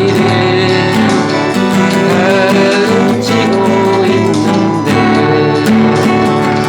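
Guitar playing a slow ballad melody, with gliding, bending notes, over a full accompaniment with a steady beat.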